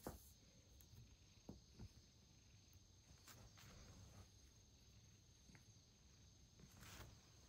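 Near silence: quiet room tone with a faint steady high-pitched whine and a few soft clicks and rustles.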